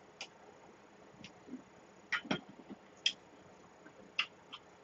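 Quiet, scattered clicks of metal spoons, chopsticks and a ladle against stainless-steel bowls and a pot, about eight light taps spread irregularly.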